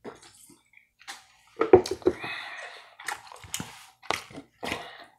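A person drinking from a can in several gulps, with wet swallowing and sipping sounds and short sharp clicks, the loudest a little under two seconds in.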